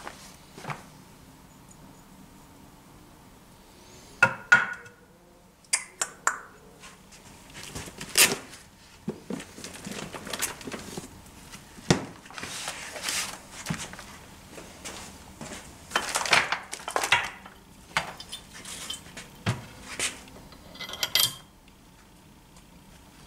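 Metal tools and parts clinking and clattering on a sheet-metal workbench top, in irregular knocks, with two short scraping stretches in the middle.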